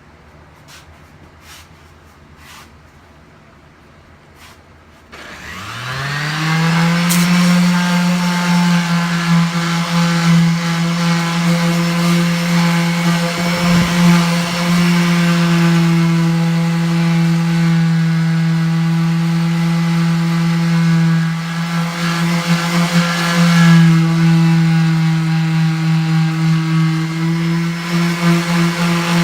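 An electric power tool starts about five seconds in, its motor winding up in pitch and then running at a steady high speed. A few faint clicks come before it.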